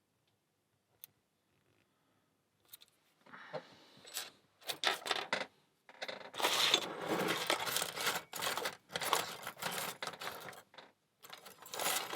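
Small metal lockpicking tools clinking and rattling in irregular bursts, with picks and tension tools knocking against each other and the padlock. Near silence at first with one faint tick, then the rattling starts about three seconds in and grows busier.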